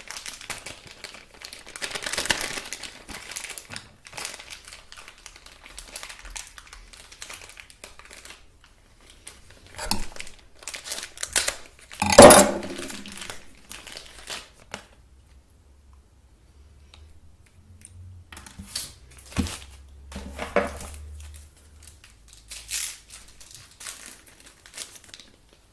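Plastic packaging crinkling and rustling in irregular bursts as the phone's accessories are unwrapped and handled, loudest about twelve seconds in.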